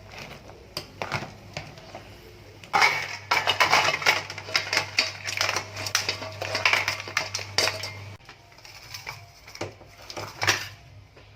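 Metal kitchen utensils clattering and scraping against pots and dishes, a dense run of clinks from about three seconds in, thinning out after about eight seconds. A low steady hum runs underneath and stops at about the same time.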